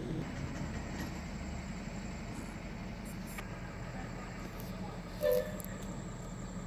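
Steady low rumble of a train, with a brief squeal about five seconds in.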